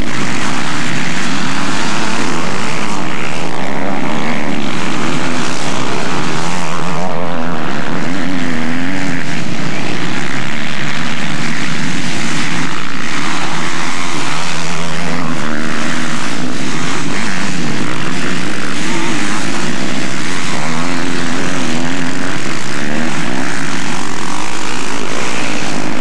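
Four-stroke motocross motorcycles racing past on a grass track, their engines revving up and down repeatedly as they accelerate and shift. The engine noise is loud and continuous.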